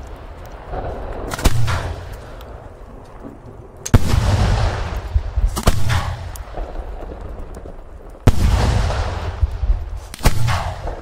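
Firework aerial bombs going off in a series: about five sharp booms roughly two seconds apart, each trailing off in a long rumbling echo. The booms about four and eight seconds in are the loudest.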